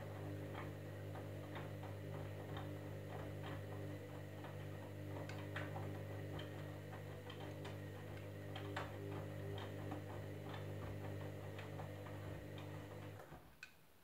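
Candy Grand'O Vita washing machine tumbling a wash load: a steady motor hum with light clicks about once a second as the laundry drops inside the drum. The drum motor stops shortly before the end, followed by a single click.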